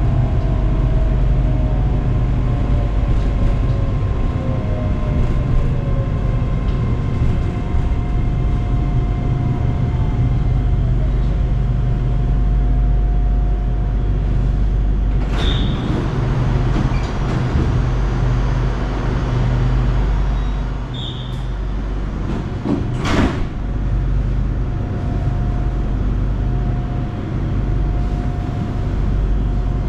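Hitachi-built electric commuter train running, with a steady low rumble and a motor whine that glides down in pitch during the first few seconds. Two sharp knocks come midway, about eight seconds apart.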